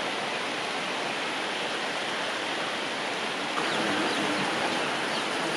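Steady rainfall, an even hiss that holds without a break.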